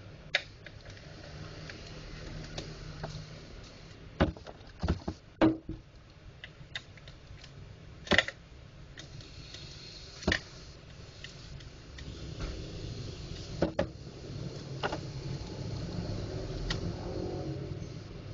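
Scattered sharp clicks and knocks of plastic parts as an HP LaserJet 100 Color MFP M175nw imaging drum unit is handled and worked apart by hand, with the loudest knocks around four to five seconds in, over a low steady hum.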